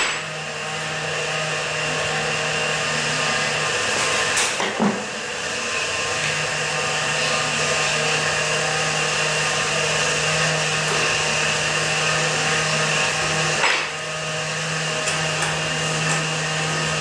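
A steady motor whir with a low hum runs throughout. Over it come a few short metal clicks, about four seconds in and again near fourteen seconds, as tie wire is twisted with pliers to fasten a rebar rod onto an Armex rebar cage.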